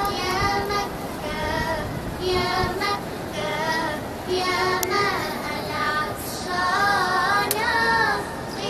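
A song sung in a high, child-like voice, in phrases that rise and fall, over a steady background hiss.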